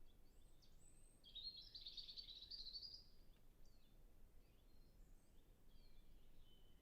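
European robin singing one high, rapid warbling phrase of about two seconds, with fainter scattered birdsong before and after it.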